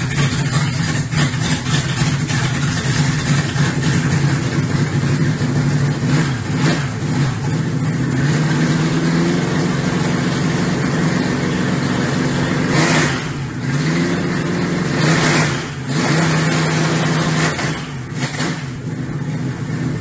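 Toyota 1UZ-FE V8 running on an engine stand at its first startup, a steady run with the engine speed rising and falling a few times in the second half.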